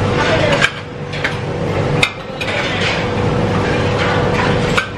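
Restaurant clatter: a few sharp clinks and knocks of plates and chopsticks over a steady din and a low hum.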